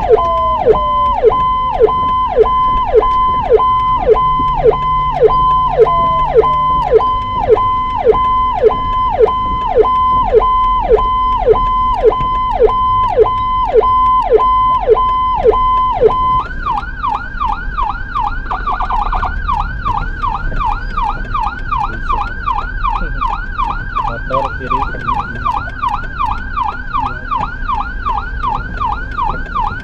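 An ambulance's electronic siren, heard from inside its own cab. It holds a high tone broken about twice a second by quick downward swoops, then about halfway through switches to a higher pattern of rising-and-falling swoops at a similar pace.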